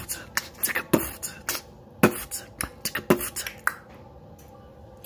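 Beatboxing: a quick run of mouth-made pops and hissy snare-like bursts, about four a second, that stops just short of four seconds in.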